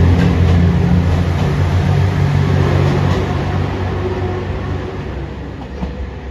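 JR Shikoku 2600 series limited express diesel railcar running under power as it pulls out of the station: a deep steady engine drone with rail and running noise, fading gradually as the train moves away.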